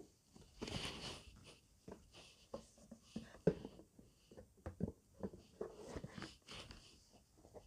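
Handling noise: rustling and a scrape about a second in, then scattered taps and knocks, the loudest about three and a half seconds in.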